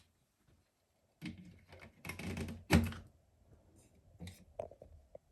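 Plastic clicks and knocks of AA rechargeable batteries being handled and fitted into a battery charger, a busy run of them with one sharper knock a little under three seconds in, then a few lighter clicks.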